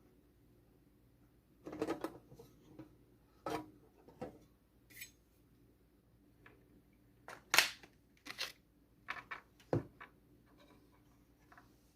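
Irregular clicks and knocks of computer hardware being handled during a RAM upgrade. The loudest is a sharp click about seven and a half seconds in.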